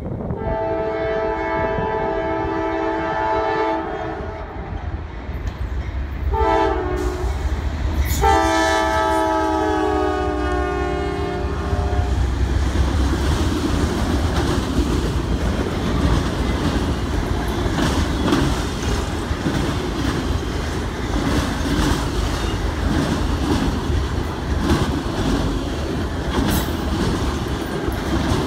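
A CSX freight train led by a GE C40-8W diesel locomotive sounds its air horn: a long blast, a short one and another long one, over the engines' low rumble. After about twelve seconds the horn stops, and the autorack cars roll past with the clickety-clack of wheels over the rail joints.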